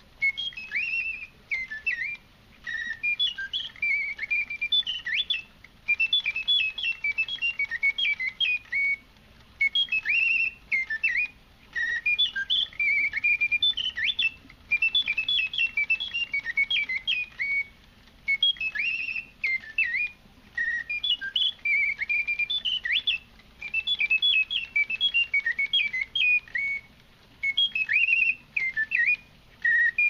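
Bontems singing-bird automaton's bellows-blown piston whistle playing mechanical birdsong: quick high chirps and trills that slide up and down, in phrases of two to three seconds separated by short pauses.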